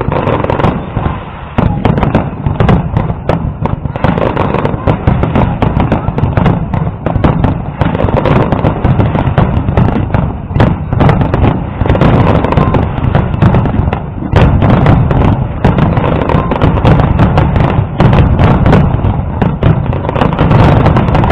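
Fireworks display with many shells bursting in rapid succession, a continuous heavy rumble of booms packed with sharp cracks.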